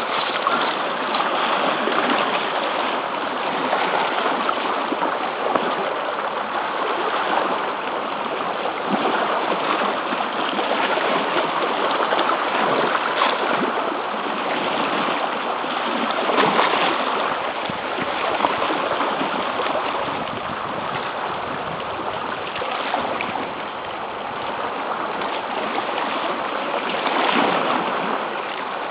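Sea water rushing and washing against a rocky shore without a break, swelling and easing every few seconds.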